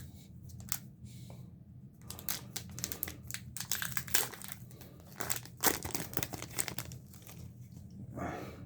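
Foil wrapper of a hockey trading-card pack crinkling as it is handled and torn, in a dense run of quick crackles from about two seconds in, thinning out near the end.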